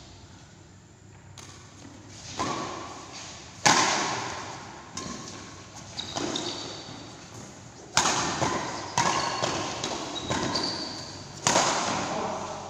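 Badminton rackets striking a shuttlecock in a rally, sharp hits about once a second that echo in a large hall, with a few short squeaks of shoes on the court floor.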